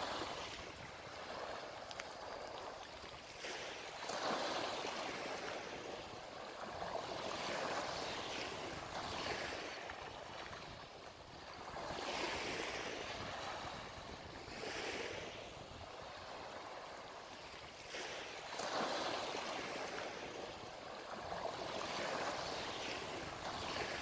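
Sea waves breaking and washing onto the shore, the rush of water swelling up and dying away every few seconds.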